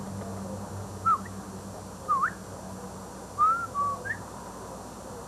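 A few short whistled chirps, some swooping down and then up, over a low steady hum that fades out about halfway through.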